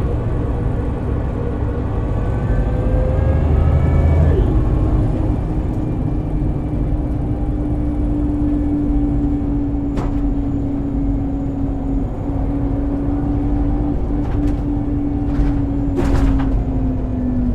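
Scania city bus's ZF Ecomat 5HP600 automatic transmission whining over a diesel rumble, the whine rising in pitch as the bus pulls, then dropping abruptly at a gear change about four seconds in. After that it holds a steady tone that sinks slowly, with a couple of clicks late on.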